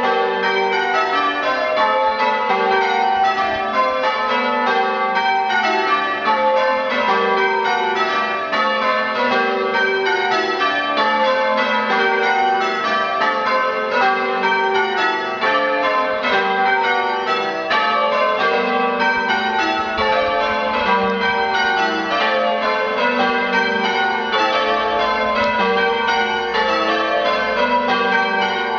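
A ring of eight church bells cast by John Taylor & Co ringing changes: an unbroken, even run of strikes, one bell after another, with the ringing of each overlapping the next.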